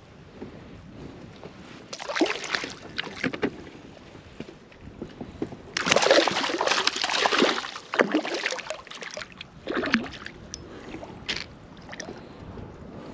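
Water splashing in irregular bursts right beside a kayak as a hooked trout thrashes at the surface. The splashing is loudest for a couple of seconds about six seconds in, with shorter splashes before and after.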